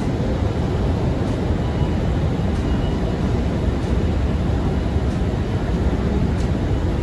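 Subway station ambience heard from a long descending escalator: a steady, even low rumble with no single clear event.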